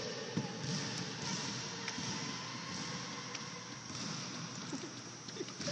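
Running footsteps of small children and an adult on a hardwood gym floor: light, irregular thuds.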